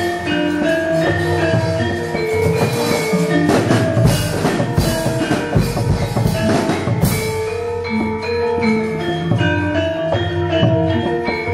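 Gamelan music: metal mallet instruments playing a stepping melody over drumming, with a busier run of drum strokes and clashes around the middle.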